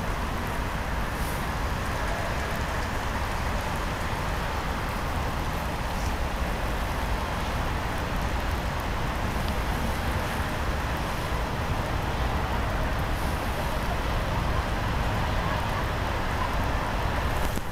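Steady hiss of rain with a low, continuous rumble of city traffic.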